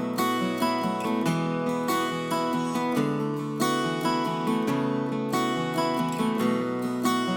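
Background music: acoustic guitar picked and strummed at a steady, even pace.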